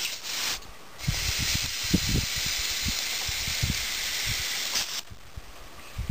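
Compressed air hissing through an air chuck on a coiled air hose into a plastic pop bottle filled with wood shavings, pressurising it through a valve in its cap. A short hiss at the start, then a steady hiss for about four seconds that cuts off suddenly, with a few low bumps under it.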